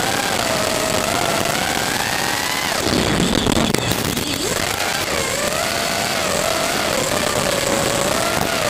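Whine of a 5-inch FPV racing quadcopter's 2205 2300kv brushless motors and props, its pitch wandering up and down as the throttle changes. About three seconds in there is a short rough rumble as the quad comes down at the grass.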